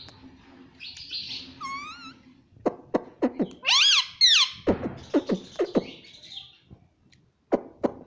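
Indian ringneck parakeet calling: a wavering whistle, then a run of quick downward-sliding chirps around a loud rising-and-falling squawk in the middle, and a few more short downward chirps near the end.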